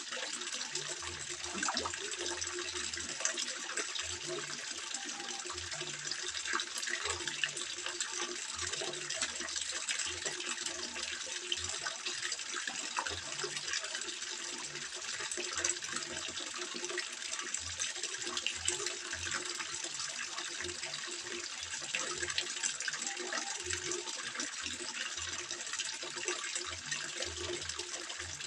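Water trickling and splashing steadily into a koi pond: a continuous rush of falling water with many small splashes.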